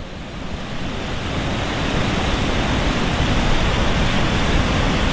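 Steady rush of whitewater pouring over a small granite waterfall and through the rapids below it, growing a little louder over the first couple of seconds and then holding even.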